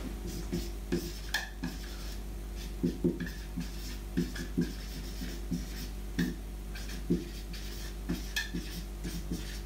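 Dry-erase marker squeaking and tapping on a whiteboard as words are written, in short irregular strokes. A steady low hum runs underneath.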